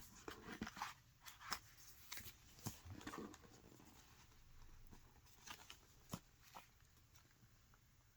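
Quiet rustling and light clicks of paper and card being handled as a book's pages and loose paper pieces are turned. There is a flurry in the first few seconds, then a few scattered soft clicks after the middle.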